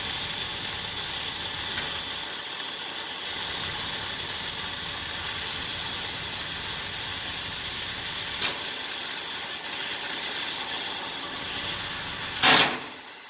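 Oxy-fuel cutting torch flame hissing steadily as it cuts through steel. Near the end there is a short, loud burst, after which the hiss falls away.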